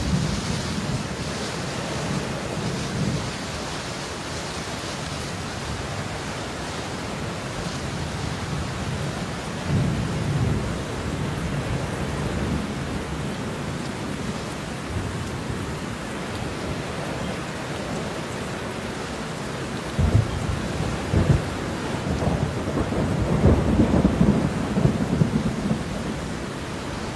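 Steady rain with rolling thunder: low rumbles near the start and again about ten seconds in, then a louder peal of thunder with sharp cracks starting suddenly about twenty seconds in.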